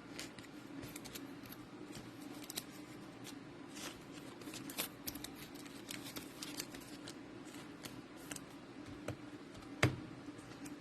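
Trading cards and pack wrapping being handled: a run of light clicks, rustles and card snaps, with one louder knock near the end, over a steady low hum.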